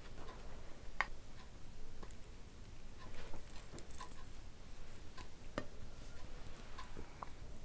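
Sparse, faint clicks and taps of a glass bowl and plates being handled as dal is poured over rice and a lime is squeezed by hand.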